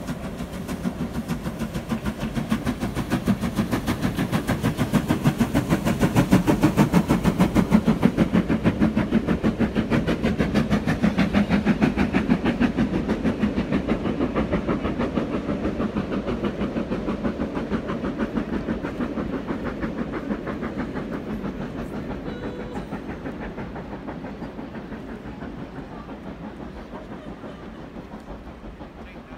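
Steam train of coaches hauled by a Black 5 locomotive crossing overhead: a fast, regular clatter over a low rumble, loudest several seconds in, then fading steadily as the train draws away.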